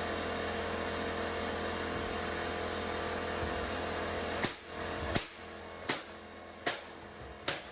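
Vacuum cleaner running with a steady motor whine, cutting off about four and a half seconds in. A low hum remains, with a sharp click about every three quarters of a second.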